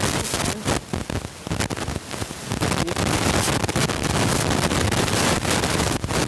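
Loud rushing hiss on the microphone, crackling for the first couple of seconds, then steady.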